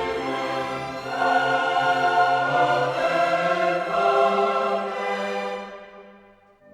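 Classical background music with choir and orchestra: a sustained choral passage swells about a second in and fades away near the end.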